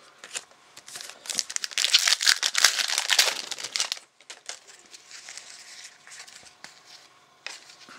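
Foil wrapper of a trading-card pack crinkling as it is handled and opened, a dense crackle loudest from about two to four seconds in, then only faint rustles.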